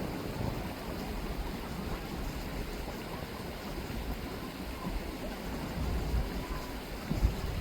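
Chilliwack River water rippling and rushing, a steady wash of sound with an uneven low rumble beneath it.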